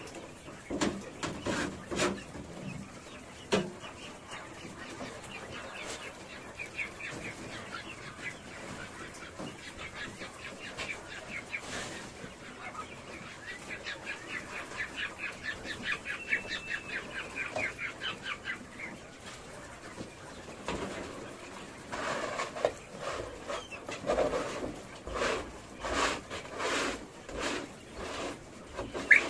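Caged quail calling in a long run of fast, chattering pulses through the middle. Near the start and over the last several seconds, sharp knocks and scrapes come from the cage's manure trays being tipped and knocked against the rim of a metal tub to empty the droppings.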